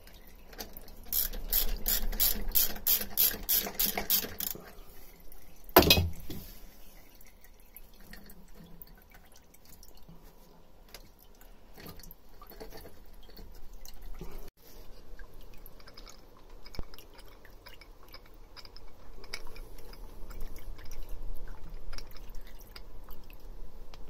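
A ratchet spanner clicks quickly and steadily for a few seconds while the Wasp fuel filter on a Beta Marine 38 narrowboat engine is undone. About six seconds in there is a single sharp knock. Quieter metal handling follows, and near the end diesel drips from the removed filter into a plastic cup.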